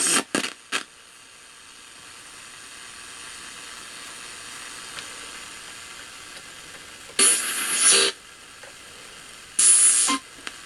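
RCA AR-77 shortwave receiver's loudspeaker hissing steadily as the dial is turned between stations. A brief scrap of broadcast voice comes through right at the start. Two loud bursts of rushing noise with a thin high whistle come through about seven and nine and a half seconds in.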